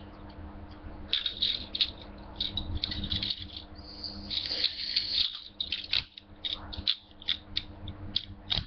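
Toy handcuffs handled, rattling and clicking in a quick irregular run of small clicks.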